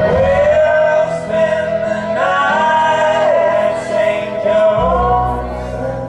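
Live band playing at a sound check, several male voices singing long held notes in harmony over the instruments. The voices slide up to new notes about two seconds in and again near five seconds, when a low bass part comes back in.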